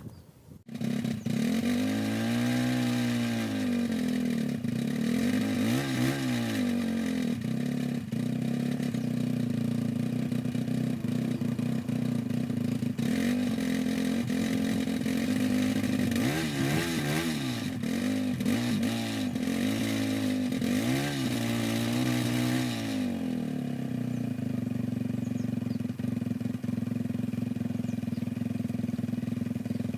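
Kawasaki D-Tracker 125's single-cylinder four-stroke engine comes in suddenly under a second in and is blipped repeatedly, its pitch rising and falling with each rev. It then settles to a steady idle for the last several seconds.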